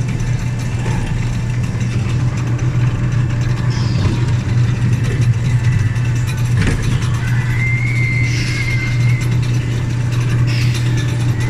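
Amusement-park train running with a steady low engine drone, and a short high squeal about eight seconds in.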